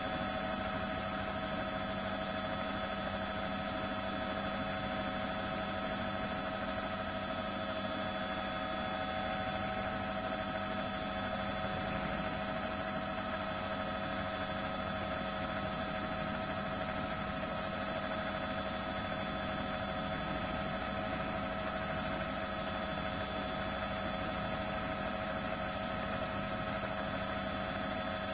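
Steady drone of a helicopter heard from on board, with several steady whining tones over a constant rushing noise that does not change.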